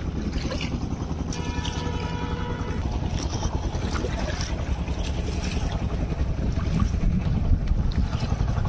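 Steady low rumble of a boat under way, with wind buffeting the microphone and scattered faint ticks.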